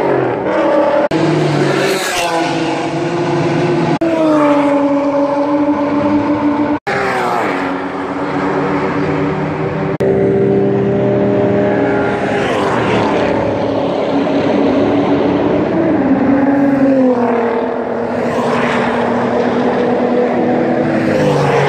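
High-performance cars passing at speed down a race track's straight, one after another, each engine's pitch dropping as it goes by. Several pass in quick succession, with a sharp break about seven seconds in.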